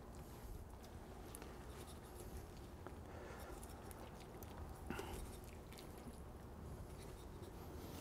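Faint wet squishing and soft ticks of a knife working through raw chicken meat and skin as a leg is cut away, with a slightly louder bump about five seconds in.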